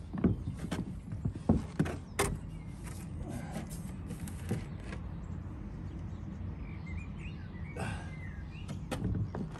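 Knocks and bumps as a timber wall plate is handled and set down along the top of a block wall: several sharp knocks in the first couple of seconds and another a little later, over a steady low background noise. A bird chirps briefly about eight seconds in.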